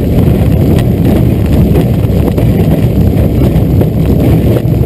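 Pitts S2A biplane's four-cylinder Lycoming engine and propeller running steadily, heard from the open cockpit with wind buffeting the microphone.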